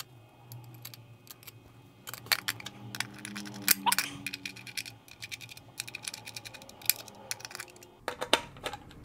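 Corner screws of a guitar pedal's back plate being turned with a small metal hand tool against the plastic enclosure: an irregular run of light clicks and scrapes, busiest a couple of seconds in.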